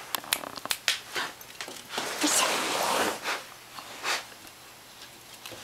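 Yellow Labrador puppy nosing about on a wooden deck: a run of sharp clicks and taps, then a long breathy sniff about two seconds in.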